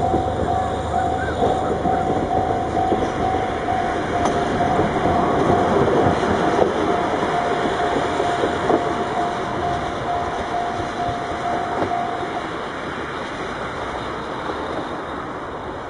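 Moka Railway steam-hauled passenger train passing close below, a steady rumble of wheels on rail with a few sharp knocks, easing off as it moves away. A pulsing steady tone rings alongside and stops about three-quarters of the way through.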